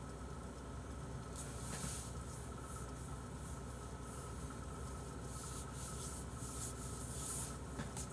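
Quiet room tone: a steady low electrical hum with faint, intermittent rustling or rubbing that starts a little over a second in.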